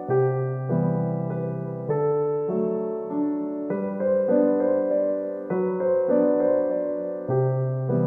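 Background music played on piano, a slow run of notes and chords with a new note every half second or so.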